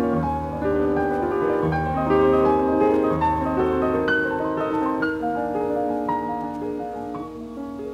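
Background piano music: a slow tune of held notes over deep bass notes that drop out about halfway through, growing softer near the end.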